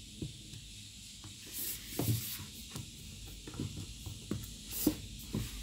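Paperback manga volumes being handled: light rubbing and scattered soft taps of the covers against hands and shelf, with a slightly louder tap near the end.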